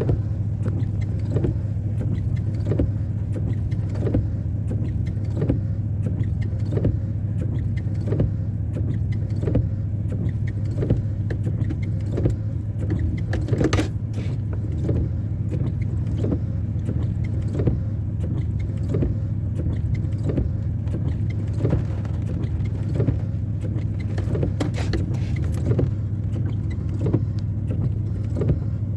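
An engine runs steadily with a low hum and a soft regular beat about three times every two seconds.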